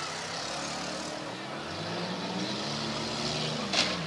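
Several demolition derby cars' engines running and revving up and down together, with one sharp bang near the end.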